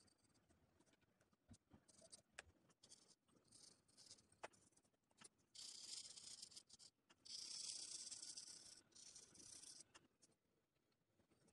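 Faint pencil lead scratching on paper in quick shading strokes, with two longer stretches of shading in the middle and a few light taps; the scratching dies away near the end.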